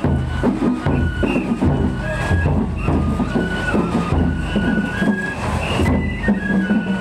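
Japanese festival hayashi music: a high bamboo flute plays a stepping melody of held notes over fast, steady drumming.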